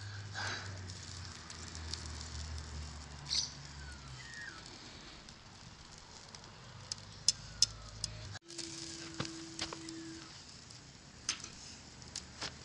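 Wood fire crackling, with scattered sharp pops.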